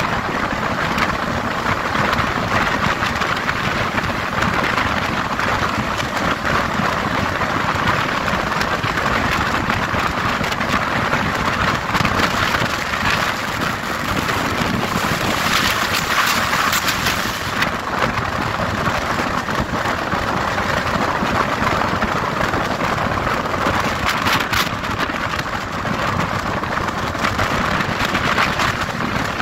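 Steady rush of wind and wheel-on-rail noise from a passenger coach of an Indian Railways express running at high speed, heard from an open door or window. It swells briefly about halfway through and again near the end.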